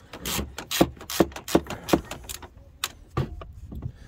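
Socket ratchet clicking in a run of sharp clicks, about two or three a second, as it is worked on a 10 mm bolt. The clicks thin out after about two and a half seconds.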